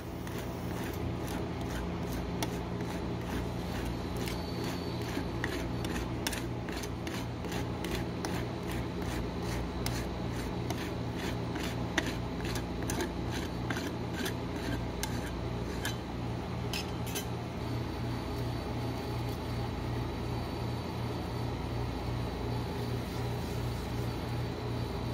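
A metal spatula scraping and tapping across an ice cream base as it is spread flat on a frozen rolled-ice-cream cold plate, with many sharp scrapes that thin out about two-thirds of the way through. Under it runs the steady, faintly pulsing hum of the cold-plate machine's refrigeration compressor.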